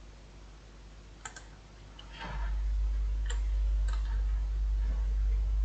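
A computer mouse clicking a few separate times. A deep low rumble comes in about two seconds in and stays under the clicks.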